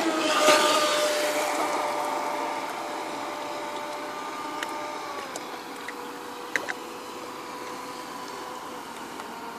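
Radio-controlled speedboat motor running flat out on the water: a steady high-pitched whine that slowly fades and drops a little in pitch about five seconds in. A brief rushing noise about half a second in.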